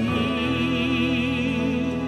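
A male singer holds one long note with a steady vibrato, backed by sustained orchestral accompaniment.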